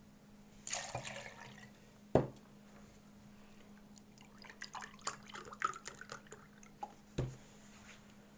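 Liquid poured briefly into a glass for measuring, with dripping, a sharp knock a little after two seconds and small clinks and knocks of glass and kitchenware.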